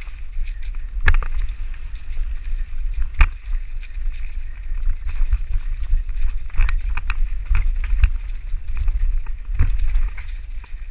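Mountain bike riding over rough trail: wind buffeting the microphone, with irregular knocks and rattles from the bike over bumps.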